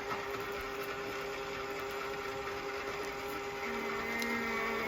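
Small battery-powered motor of an Eggmazing egg decorator whirring steadily as it spins an egg.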